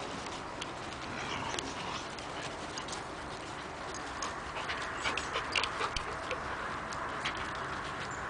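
Dogs playing and chasing each other, with a run of quick claw clicks on the paving stones about halfway through.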